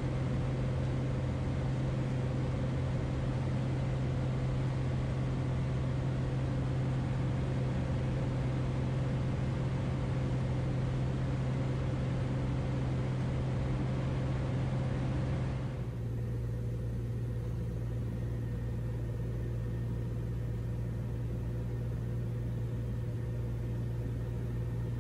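Single-engine light aircraft's piston engine and propeller heard from inside the cabin, running steadily at full power through a takeoff roll and climb-out. About two-thirds of the way through it cuts suddenly to a lower, duller engine drone with much less hiss.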